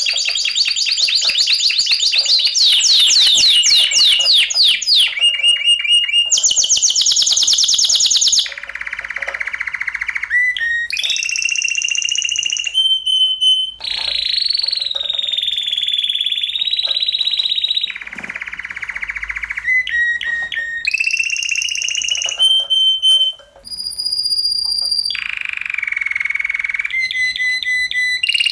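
Spanish timbrado canary singing a long, varied song: fast repeated rising trills, clipped clicking notes, held whistles and lower, softer trills, switching every second or two, with a brief break about 23 seconds in.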